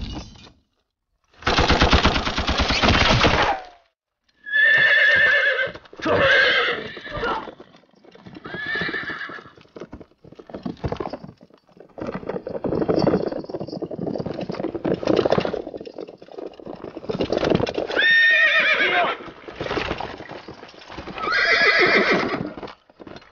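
Horses whinnying again and again, each call falling in pitch, with hooves clattering between the calls. About two seconds in, a loud blast-like crash lasting about two seconds comes first.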